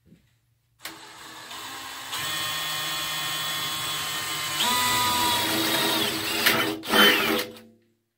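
Electric drill spinning up and cutting into the sheet steel of a toolbox, a steady motor whine that steps up in pitch and gets louder about halfway through. The loudest, harshest burst comes near the end, and the drill stops shortly before the end.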